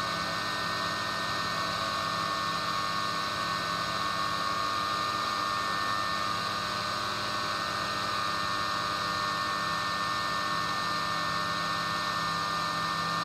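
A steady machine hum with a high whine and an even hiss, cutting off abruptly at the end.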